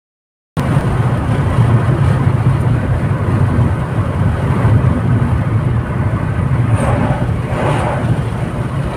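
Steady low road and engine rumble of a car driving at highway speed, heard from inside the cabin. It starts about half a second in and swells briefly near the end as oncoming trucks pass.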